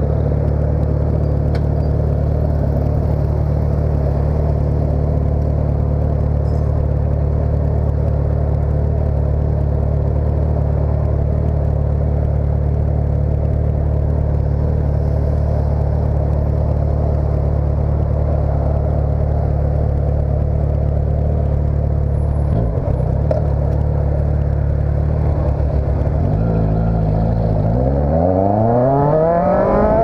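Motorcycle engine idling steadily through its exhaust. Near the end it revs up and pulls away, the pitch rising as it accelerates.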